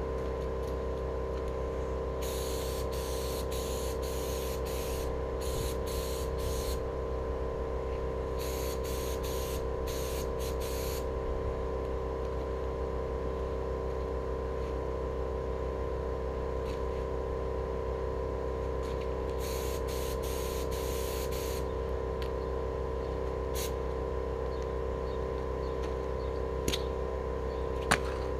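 HVLP paint spray gun hissing in several bursts of one to three seconds as the trigger is pulled, spraying paint onto steel wheels. An air compressor hums steadily underneath.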